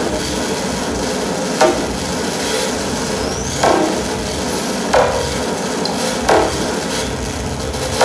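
Experimental noise music: a dense, steady hiss with four sharp struck hits a second or two apart, each sliding down in pitch as it fades.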